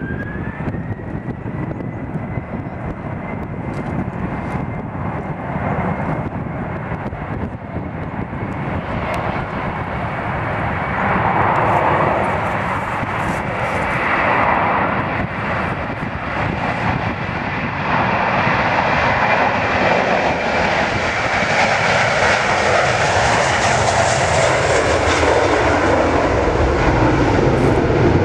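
Airbus A321-231's twin IAE V2500 turbofan engines at takeoff thrust. In the first second they spool up with a whine rising to a steady high pitch. Their noise then grows louder through the takeoff roll and climb-out.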